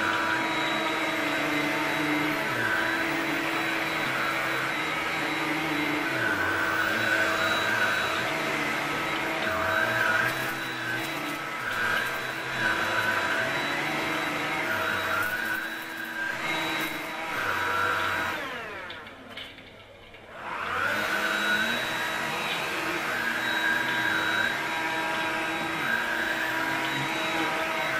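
Bosch cordless handstick vacuum cleaner running, its sound wavering as it is moved about. About two-thirds through the motor winds down nearly to a stop and spins back up.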